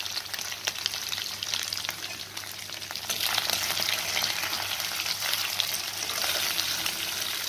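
Soya chaap pieces shallow-frying in hot oil in a kadhai: a steady sizzle full of fine crackling, growing louder about three seconds in.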